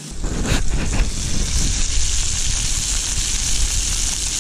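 Sausages sizzling in a small frying pan on a portable gas camping stove, a steady hiss over a low rumble. A few light clatters of the pan or utensils come in the first second.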